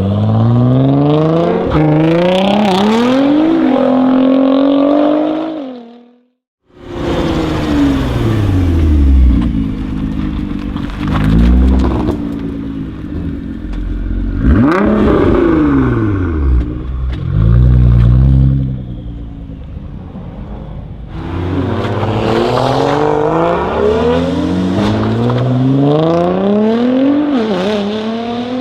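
Tuned Nissan GT-R R35 SpecV's twin-turbo V6 accelerating hard, its pitch climbing through several quick upshifts. The sound cuts out briefly about six seconds in; then the car passes with a falling pitch, revs up and down, and pulls hard through the gears again near the end.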